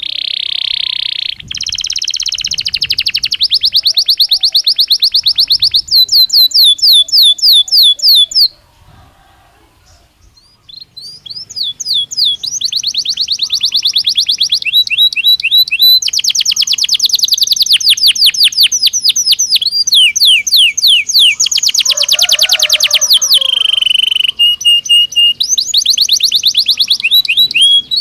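A Belgian canary singing: long runs of fast, evenly repeated notes, each run at its own pitch. It breaks off for about two seconds near the ten-second mark, then starts again.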